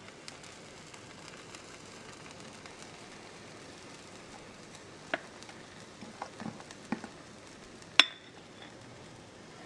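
Pancake batter sizzling faintly on a hot griddle, while a stainless measuring cup clinks against the glass mixing bowl: a sharp clink about five seconds in and a louder, briefly ringing one about eight seconds in, with softer scraping knocks between them as batter is scooped.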